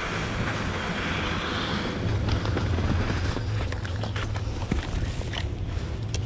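Wind on the microphone: a steady low rumble with a hiss, and a few faint clicks.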